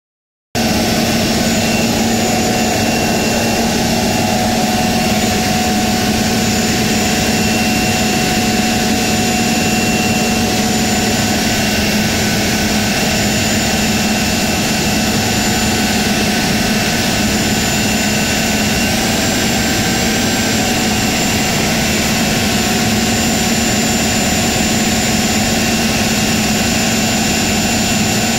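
Detroit Diesel 6V92 two-stroke V6 diesel engine running steadily at an even speed, heard up close in the engine bay, with a steady high whine over the deep engine note. It starts about half a second in.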